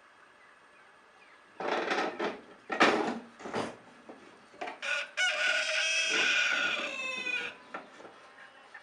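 A rooster crowing: one long pitched crow of about two seconds that drops at the end, after a few short rough, noisy sounds.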